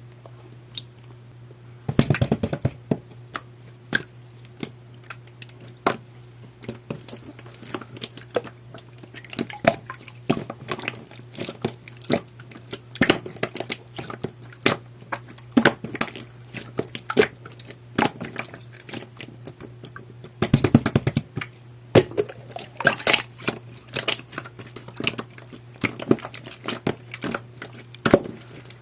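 Jelly-textured slime being pressed and squished by hand, giving a running series of sharp clicks and pops, with dense flurries about two seconds in and again about twenty seconds in. A steady low hum sits underneath.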